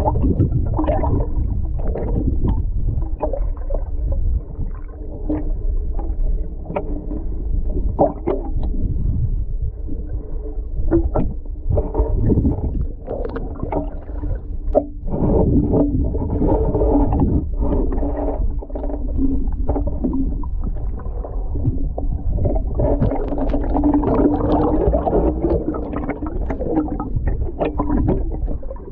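Water stirred by a person wading in deep water, heard through a submerged camera: a muffled, continuous low rumble and sloshing with frequent dull knocks and bubbling, busier near the end.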